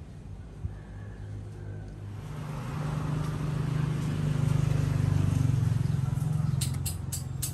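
A motor vehicle passing by: a low engine hum swells over a few seconds, then fades again. A few sharp clicks near the end.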